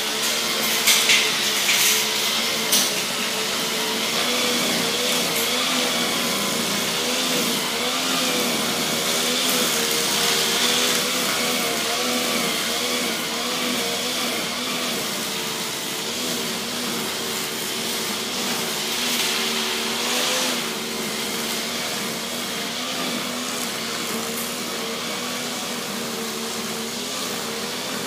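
A small motor whirring steadily, with a slightly wavering hum and a hiss on top. A few sharp clicks come about one to three seconds in.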